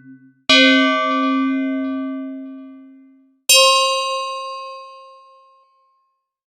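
Two separate bell-like ding sound effects, each struck once and left to ring out, fading over two to three seconds. The second one, about three seconds after the first, sounds higher-pitched.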